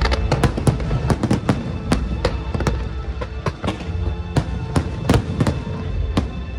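Fireworks going off in a rapid, irregular series of sharp bangs and crackles, over steady music.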